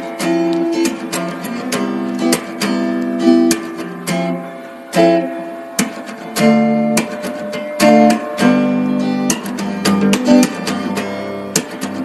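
Acoustic guitar music, strummed chords mixed with plucked notes.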